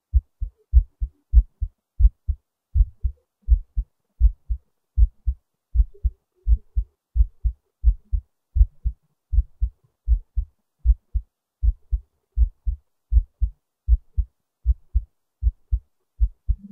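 Human heartbeat heard close up: a regular rhythm of low paired thumps, the lub-dub of each beat, keeping a steady pace.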